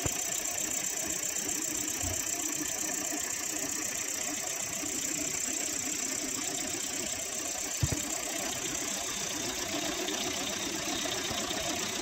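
Homemade 12-volt solenoid V8 engine running steadily, its eight solenoids firing in fast succession to turn the crankshaft as an even mechanical clatter, with one sharper knock a little before eight seconds in.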